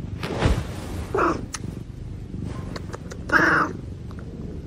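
Orange tabby cat meowing twice: a short meow about a second in, then a louder, longer one about two seconds later.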